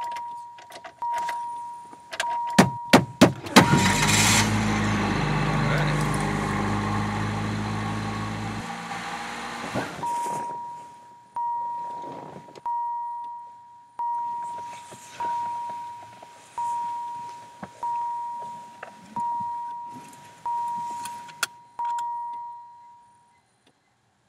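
A car's seatbelt warning chime dinging steadily, about once every 1.2 seconds. About two and a half seconds in, a few sharp loud bangs break in, then several seconds of loud crashing noise with a low drone. After that the chime carries on and stops near the end.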